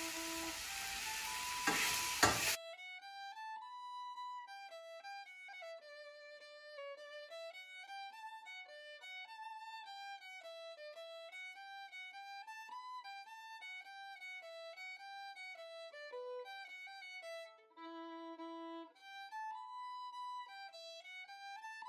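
Background fiddle music: a violin playing a lilting melody. For the first two seconds or so a steady hiss of live sound from the hearth runs under it, with a couple of sharp knocks, then cuts out, leaving only the fiddle.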